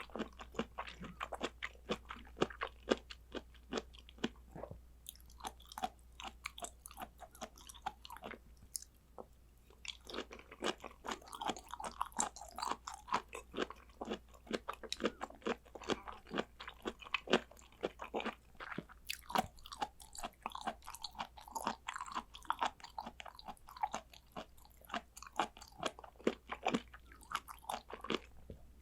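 Close-miked chewing of raw blood clam sashimi: a dense run of rapid clicking, smacking mouth sounds, with a short lull about nine seconds in.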